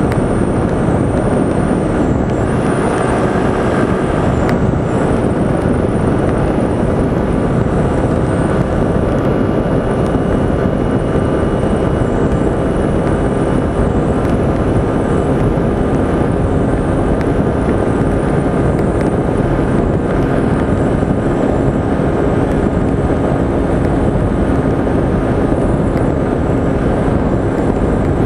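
Wind rushing over the microphone with a Honda motorcycle engine running steadily underneath, cruising at about 110–120 km/h.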